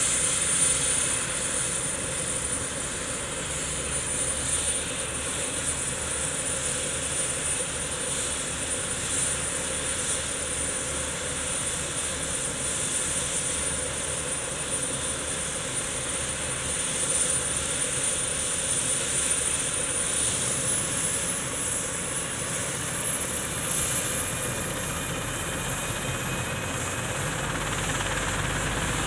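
Bell 430 helicopter running on the ground with its twin turboshaft engines and rotor turning: a steady rush of rotor and engine noise under a thin, high turbine whine that rises slightly in pitch a bit over two-thirds of the way through.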